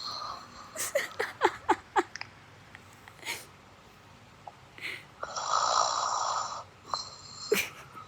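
Sleeping cat snoring with a wheezy, hissing sound: one long snore about five seconds in, then a shorter one. Earlier comes a quick run of short squeaky sounds, each falling in pitch.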